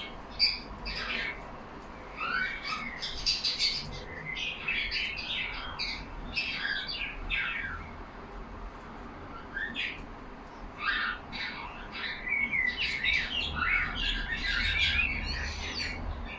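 Several caged budgerigars chattering and chirping in quick clusters of short calls, with a lull about halfway through before the chatter picks up again.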